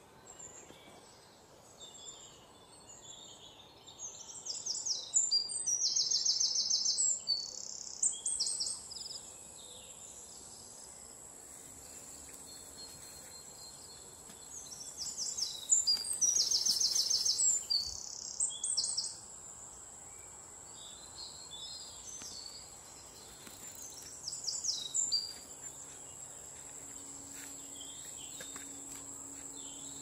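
Birds singing in three loud spells of fast, high trilled notes, over the steady high whine of insects.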